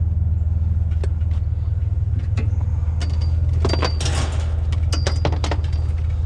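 Pickup truck engine idling with a steady low hum, while a lamp is handled nearby: sharp clicks and a few short metallic clinks, thickest between about three and five and a half seconds in.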